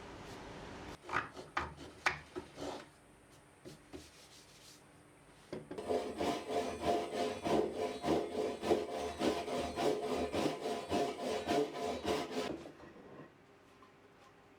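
A hand tool working wood: a few separate scrapes, then from about six seconds in a fast run of rasping strokes, four or five a second, with a faint ringing in them, lasting some seven seconds before stopping.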